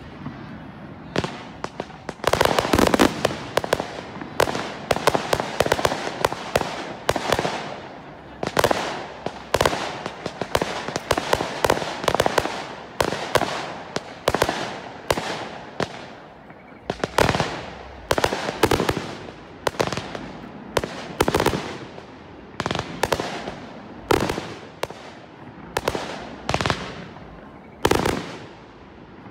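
Fireworks display: aerial shells bursting in a barrage of sharp bangs with crackle, packed close together in the first half, then single bangs about once a second.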